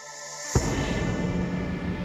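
Cinematic soundtrack music: a rising swell that breaks into a deep boom about half a second in, followed by a dense sustained drone with a steady low tone.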